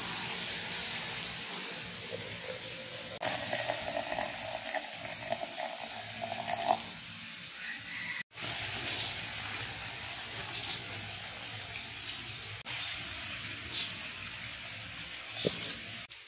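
Water poured from an aluminium kettle into a glass French press jug, a splashing stream whose pitch rises as the jug fills, stopping about seven seconds in.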